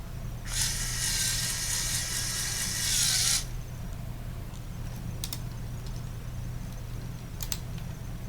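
Lego Power Functions medium motor whirring through the model's plastic gear train for about three seconds, then stopping. Two short clicks follow a couple of seconds apart.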